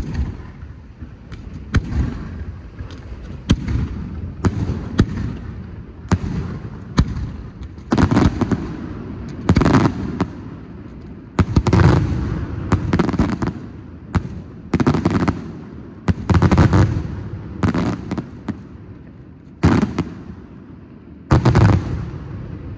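Aerial fireworks display: an irregular string of shell bursts, each a sharp bang with a rumbling echo. Lighter cracks in the first few seconds give way to heavier, closer-spaced booms.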